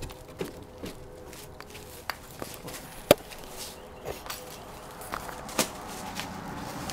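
Irregular taps and knocks on wooden porch boards as a small dog drags a plastic-bagged newspaper across the deck, with footsteps; one sharp knock stands out about three seconds in.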